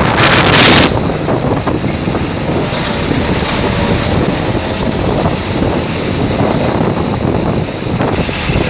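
Strong wind buffeting the microphone over the steady running of a timber truck's hydraulic log loader crane. A loud hissing gust hits in the first second.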